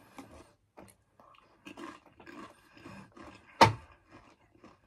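Mouth-close chewing of Pringles crisps with soft crunching, and a single loud sharp crack about three and a half seconds in.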